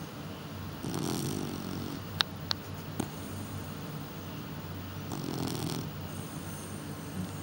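A sleeping pet snoring, two slow noisy snores about four seconds apart, with three sharp clicks in between.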